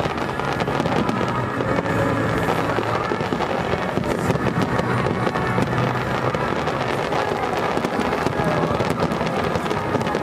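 Aerial fireworks bursting and crackling without a break, with music playing underneath.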